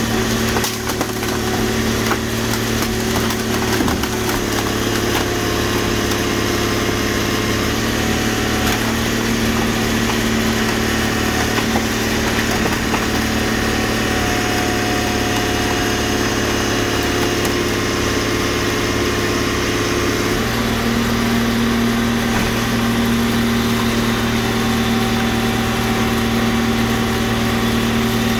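Car crusher's engine and hydraulic pump running steadily while the press holds down a stack of flattened cars, the pitch stepping up slightly about twenty seconds in. A few sharp clicks near the start.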